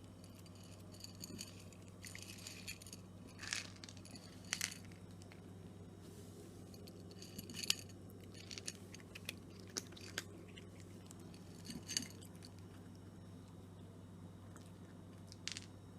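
A cat crunching dry kibble, with irregular chewing crunches and a few louder bites scattered through, over a faint steady low hum.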